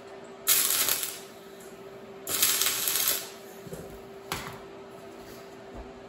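MIG welder striking two tack welds on steel angle iron: the first about half a second long, the second nearly a second, then a brief third blip about four seconds in. A steady low hum runs underneath.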